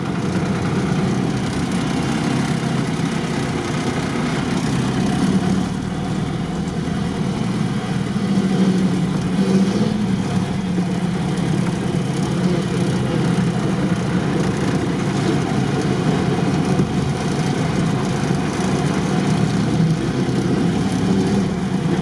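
Engine of a modified UAZ off-road 4x4 running steadily as the vehicle drives along.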